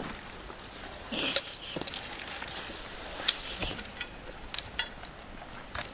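Irregular knocks and light clinks from a climber working up a tree trunk on climbing spurs and a flipline: spikes striking the bark and metal hardware clinking. Two sharper knocks stand out, about a second and a half in and about three seconds in.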